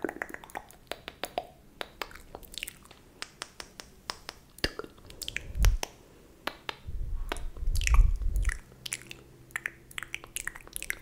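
Close-miked ASMR mouth sounds: wet clicks and smacks of the lips and tongue, several a second. A low muffled rumble rises about five and a half seconds in and again, loudest, from about seven to eight and a half seconds.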